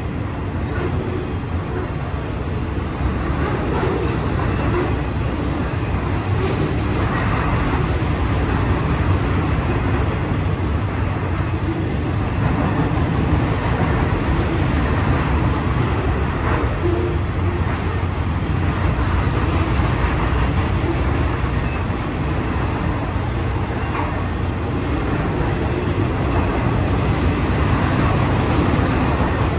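BNSF rail train's flatcars, loaded with long steel rails, rolling past, with the steady rumble of steel wheels on the track, heard from inside the station building.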